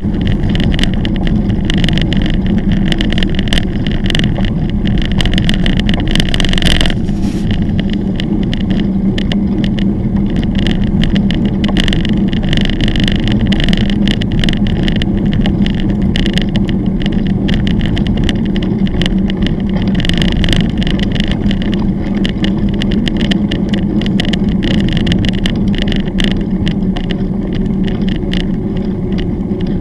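Mountain bike rolling over a gravel forest track: a steady rumble of tyres on gravel, with a constant spatter of small rattles and knocks from the bumps.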